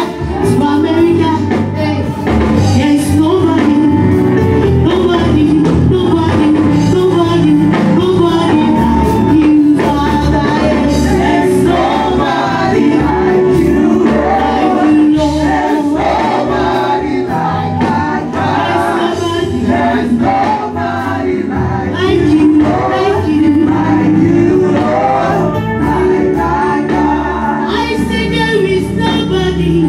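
Gospel music with group singing over a band with a steady beat.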